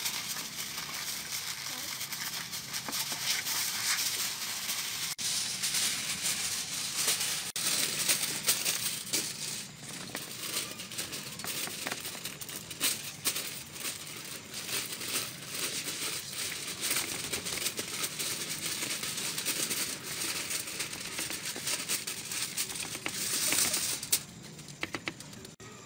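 Aluminium foil crinkling and plastic gloves rustling as hands wrap a fish in foil and rub chopped chili onto it: a steady crackly rustle with many small clicks, breaking up near the end.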